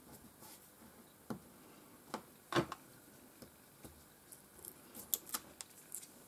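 Faint scattered ticks and paper rustles of hands fitting double-sided tear tape to a small paper strip and working its backing with a pointed tool. The loudest tick comes about two and a half seconds in, and the small ticks come quicker near the end.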